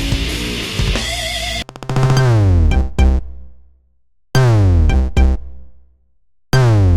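Android 15 stock ringtones: one busy, rock-like ringtone ends about a second and a half in, and the next one starts. The new ringtone is an electronic pattern of a downward-gliding synth tone over a deep bass drop, closed by two quick drum hits, repeating about every two and a quarter seconds.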